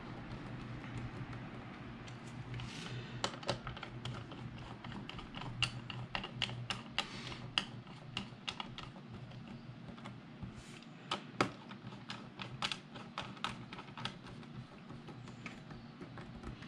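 Small screwdriver driving the corner screws of an Intel NUC mini PC's bottom cover: a run of irregular light clicks and taps of the metal bit in the screw heads and against the case.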